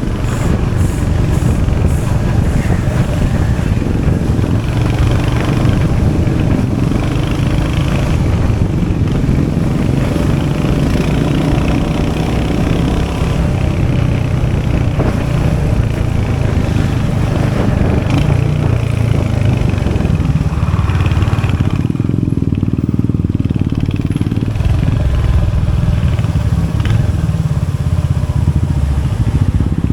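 Royal Enfield Hunter 350's 349cc single-cylinder J-series engine running, its exhaust note continuous and steady, with the higher sound easing off briefly about two-thirds of the way through.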